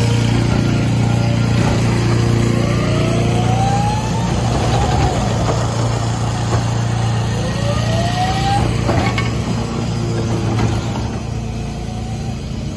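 Autocar ACX rear loader garbage truck's engine running steadily while its hydraulic gripper cart tipper lifts and dumps a trash cart into the hopper, with two rising whines and a sharp knock about nine seconds in.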